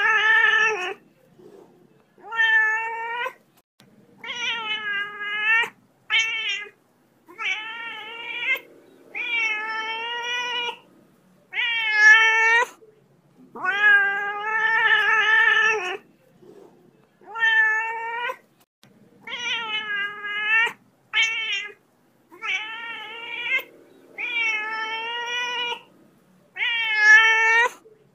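A cat meowing over and over: about fourteen long, drawn-out calls, each lasting up to about two seconds, with short pauses between them.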